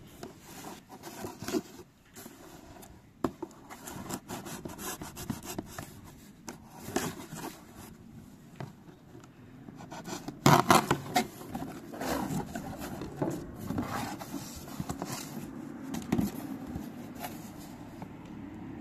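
Cardboard box being cut open and handled: a utility knife slicing along the taped seam, with irregular scraping and rubbing of cardboard and a few clicks, loudest about ten seconds in.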